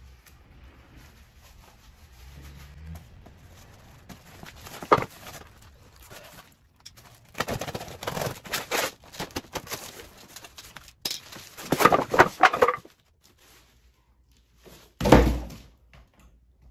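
Cardboard box of a flat-packed cedar garden bed being opened and unpacked by hand: bouts of ripping, scraping and knocking about halfway through, then one heavy thump near the end.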